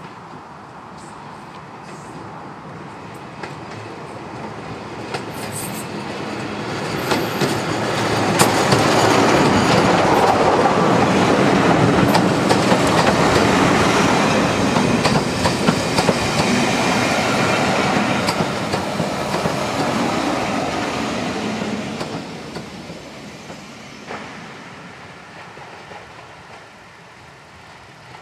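Class 24 diesel locomotive, with its six-cylinder Sulzer engine, approaching and passing close by hauling coaches, followed by the wheel noise of the coaches running past. It grows loud from about eight seconds in, stays loud for about ten seconds, and fades away over the last several seconds.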